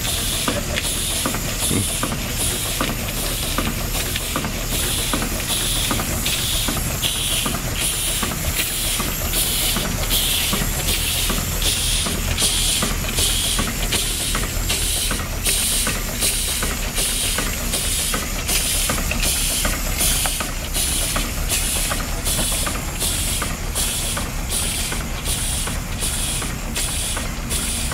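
20th Century steam traction engine running slowly while warming up: a steady hiss of escaping steam with regular exhaust chuffs about twice a second.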